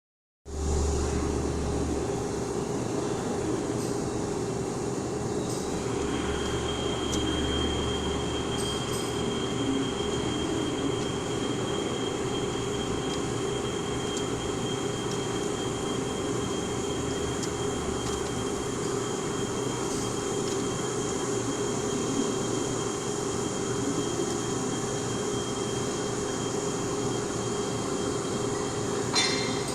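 CNC lathe running, a steady mechanical drone with a high steady whine that sets in about six seconds in, and a brief clatter near the end.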